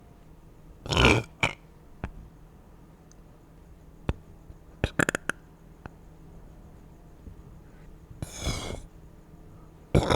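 A person burping, the burps muffled against a plush toy: a loud burp about a second in, a few short clicks around the middle, another burp about eight seconds in, and a loud one starting at the very end.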